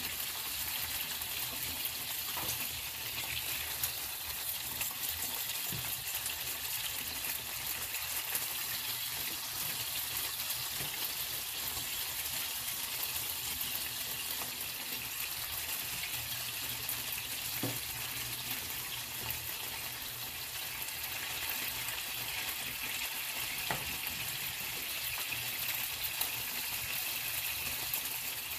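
Longganisa sausages sizzling steadily as they fry in a pan, with a few light clicks of tongs and a spatula against the pan.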